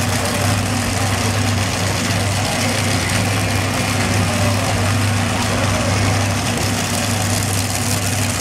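Multi-engine modified pulling tractor's engines idling steadily, a low even drone with no revving.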